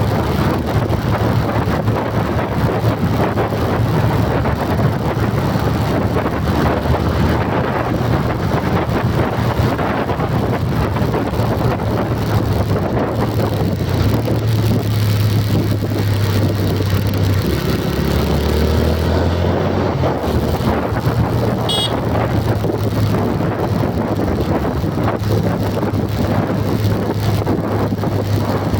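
A motor vehicle running steadily, with a low engine drone under road and wind noise. The engine note drops lower about two thirds of the way through, then comes back up, and there is a brief faint high chirp soon after.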